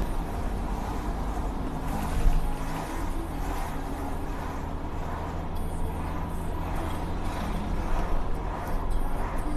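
Car driving and gathering speed on a wet road, heard inside the cabin: a steady low rumble of engine and tyres, with one brief thump about two seconds in.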